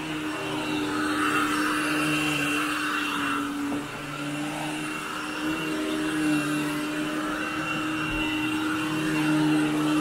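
Royal commercial upright vacuum cleaner running on carpet. Its motor holds a steady hum at one pitch, while the suction noise swells and fades as it is pushed back and forth.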